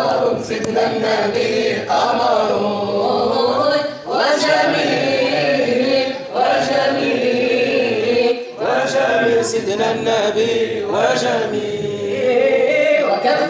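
Devotional chanting in praise of the Prophet, sung unaccompanied: voices holding long, wavering notes in phrases, with short breaths between them.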